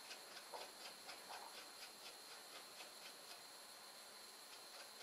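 Near silence with faint, evenly spaced ticking, about four or five ticks a second, that thins out about three seconds in, and a couple of faint short scrapes near the start.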